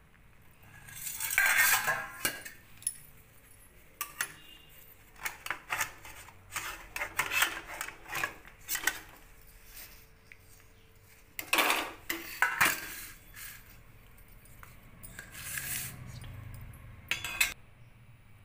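Stainless steel steamer pot, lid and perforated steamer basket knocking, clinking and scraping as they are lifted and set down. The clanks come irregularly, the loudest about a second and a half in, around twelve seconds and near the end.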